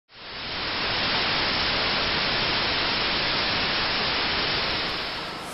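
Analogue television static: a steady hiss of white noise that swells in over the first second and eases off slightly near the end.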